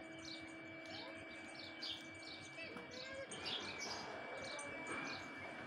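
Small birds chirping, with short high chirps repeating several times a second, over a faint steady hum.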